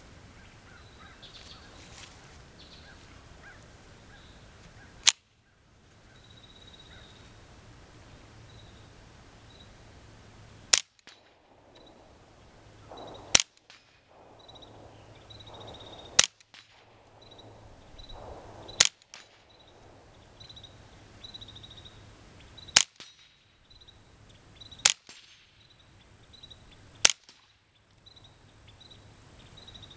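Ruger 10/22 firing Remington .22 subsonic rounds through a Huntertown Arms Kestrel 5.56 suppressor: eight sharp shots a few seconds apart, unevenly spaced, with the ting of steel targets being hit.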